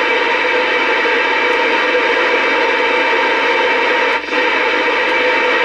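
Steady static hiss from a CRT Superstar 120 CB radio receiver while its channel selector is stepped through the upper channels, with a brief drop about four seconds in.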